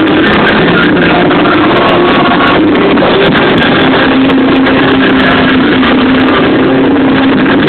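Live band music played very loud, overloading a phone's microphone so it comes through heavily distorted, with held notes under a constant blare.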